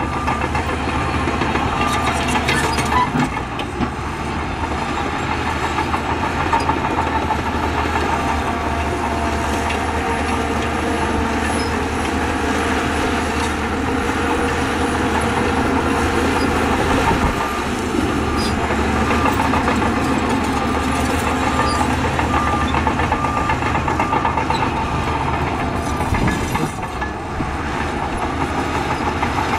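Heavy diesel earthmoving machinery, a bulldozer with dump trucks, running steadily under load with a deep engine drone and mechanical clatter. A reversing alarm beeps steadily at the start and again over the last third.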